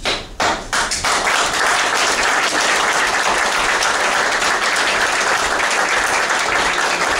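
A small crowd applauding: a few separate claps at first, then steady applause from about a second in.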